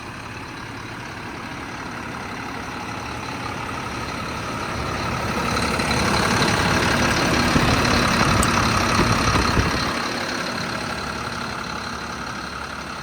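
Caterpillar C7 7.2-litre diesel in a 2007 Ford F-750 idling, growing louder in the middle and easing back down.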